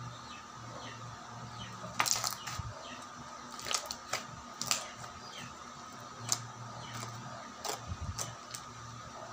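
Clear glittery slime being squeezed and kneaded by hand, giving sharp, short clicking pops, about eight of them, the loudest about two seconds in. A steady low hum runs underneath.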